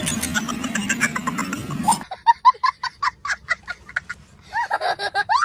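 A busy, noisy mix with a low hum cuts off suddenly about two seconds in. A rapid run of short, pitched animal calls follows, about five a second, with a louder stretch near the end.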